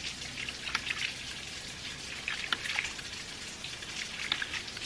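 Water splashing and trickling out of a half-inch hydraulic ram pump's waste valve as it is held open, bleeding trapped air out of the drive pipe so the pump can start cycling on its own. A few sharp ticks stand out from the steady splashing.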